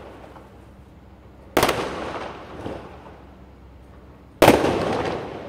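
Aerial fireworks bursting overhead: two loud bangs about three seconds apart, each followed by an echo that dies away over about a second.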